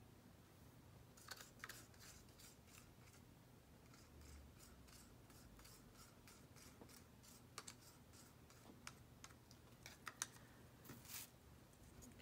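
Faint, scattered clicks and light taps of small paint cups being handled and set down, with a few louder clusters of clicks about a second in, near the middle, and near the end.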